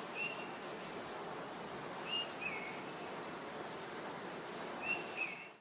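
Small birds chirping in short, high calls, mostly in pairs, several times over a steady background hiss.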